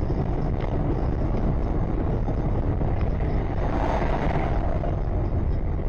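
Steady road and engine noise heard from inside a moving car, with an oncoming car passing by about four seconds in.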